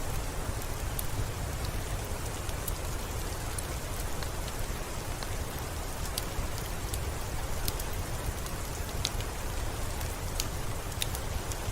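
Steady soft rain with a low rumble, overlaid with scattered sharp crackles from a wood fire in a fireplace.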